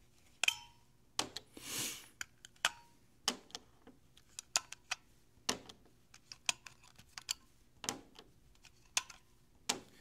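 AA batteries being pried out of a LEGO EV3 brick's plastic battery compartment and set down on a wooden table: irregular sharp clicks and clacks of metal-cased cells against plastic and wood, with a short rustle about two seconds in.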